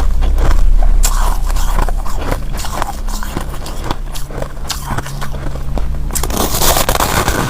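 Hard ice being bitten and chewed close to the microphone: irregular sharp cracks and crunches over a low rumble, turning into a dense burst of crackling crunching about six and a half seconds in.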